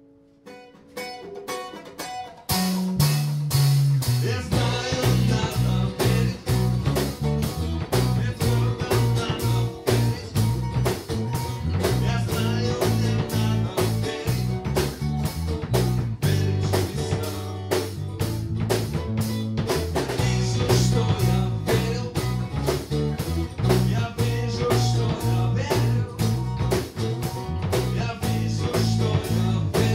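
Small live band playing a song: two acoustic guitars, an electric bass and a male singer. It starts quietly and the full band comes in loud about two and a half seconds in with a steady beat.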